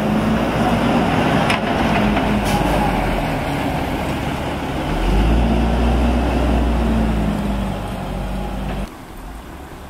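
Heavy engine and tyres of an armored police rescue truck driving past close by, loudest about halfway through, then moving off. The sound starts and cuts off suddenly near the end.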